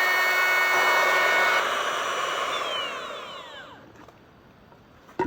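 Electric power tool running with a steady whine, then switched off: its motor winds down with falling pitch and fades out over about two seconds. A sharp click follows near the end.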